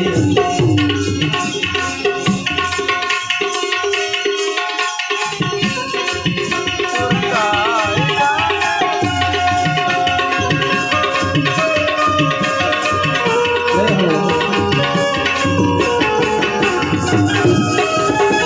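Instrumental interlude of a Gujarati desi bhajan: a harmonium melody over a steady tabla rhythm. The tabla drops out for a moment a few seconds in, then comes back.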